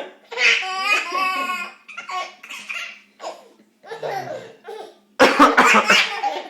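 Baby laughing in bursts, with a person coughing loudly a few times about five seconds in.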